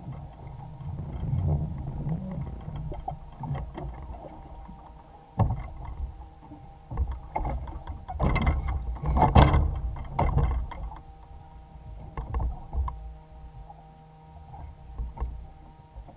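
Irregular knocks, bumps and handling noises on the deck of a Waverunner personal watercraft converted into a bass boat as the angler moves around on it, over a low rumble. A burst of louder knocks comes near the middle.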